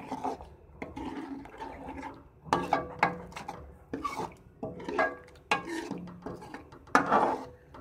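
A metal spoon scraping and knocking round a metal pot, stirring chicken in thick masala and ghee as it is fried (bhuna), in uneven strokes, the loudest near the end.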